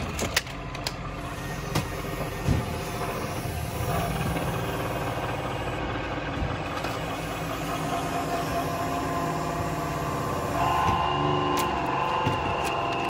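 NAVAC cordless electric flaring tool running as it forms a flare on 1/4-inch copper refrigerant line: a steady motor hum that starts about four seconds in and turns louder and higher-pitched about two-thirds of the way through. A few sharp handling clicks come in the first couple of seconds.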